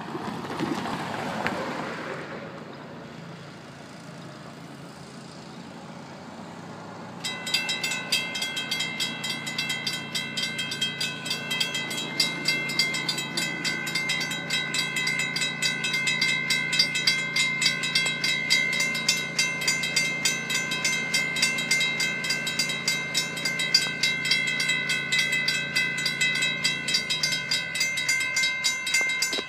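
The crossing's two mechanical bells, a WRRS and a WCH 2nd Generation, start ringing abruptly about seven seconds in, with rapid, even strokes as the crossing signals activate. Under them a low steady hum, the gate mechanisms driving the gate arms down, runs until near the end. A brief rush of noise comes in the first two seconds.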